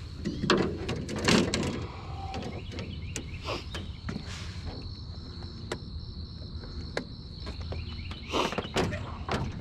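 Knocks and clatters on an aluminium jon boat while a freshly caught largemouth bass is handled over the deck, with a few louder bumps near the start and again near the end.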